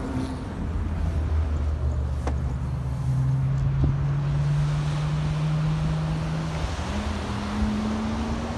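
Pickup truck on the move, heard from inside the cab: a steady engine and road hum whose pitch rises slowly, then steps up about seven seconds in.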